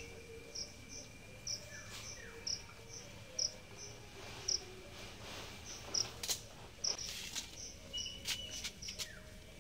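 An insect chirping in short high pulses, about one to two a second, over a faint steady high tone, with a few soft clicks in the second half.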